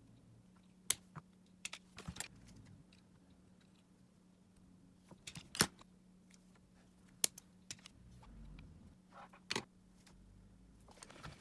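Irregular small clicks and taps of hard objects being handled, about a dozen spread unevenly, over a faint steady low hum.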